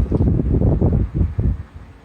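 Uneven low rumbling on the microphone, like wind or handling noise, stopping abruptly about one and a half seconds in.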